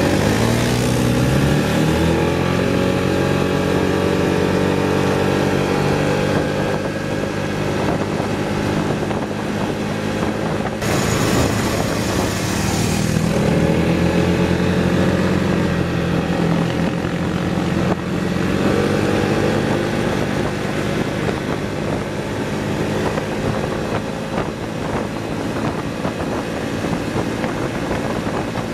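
Piaggio MP3 400 scooter's single-cylinder engine accelerating hard from a standing start at full throttle, revs climbing quickly in the first couple of seconds and then holding fairly steady, with wind rushing over the microphone and a louder gust about eleven seconds in.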